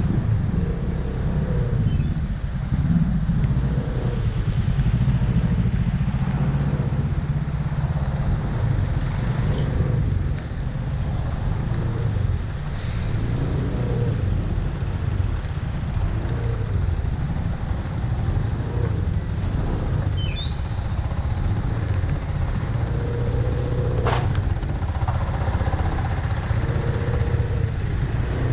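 Road traffic, motorcycle and car engines running, a steady low rumble, with a couple of short high chirps and a sharp click in its last third.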